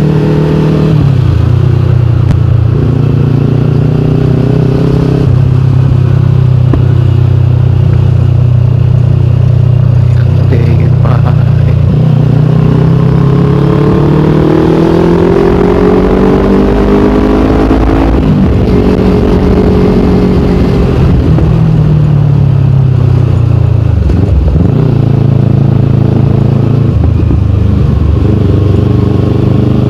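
Kawasaki Ninja 250 Fi parallel-twin engine through an aftermarket KP16 exhaust while riding. It holds steady, then revs up from about twelve seconds in, drops sharply at a gear change about six seconds later, and falls away as the bike slows before settling back to a steady cruise.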